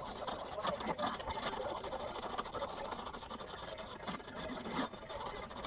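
Scraping and handling noises from hands and tools working on the Catalina 25's swing-keel hanger and pivot hardware, heaviest about a second in and again near the end, over a fast, even ticking.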